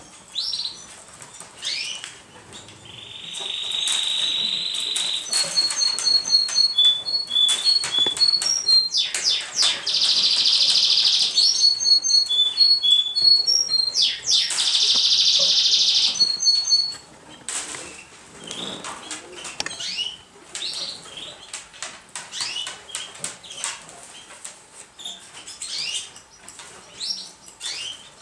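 Domestic pigeons fluttering and flapping their wings, with many short wing claps and rustles. Rows of quick high chirps run through it, and three loud hissing bursts of about two seconds each come in the first half.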